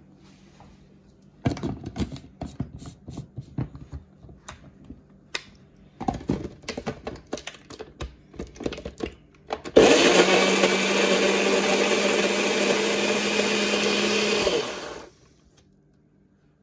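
NutriBullet personal blender running for about five seconds as it blends yogurt and mango, a loud steady whir over a low motor hum that stops abruptly. Before it, a run of knocks and clatters as the cup is handled and set on the base.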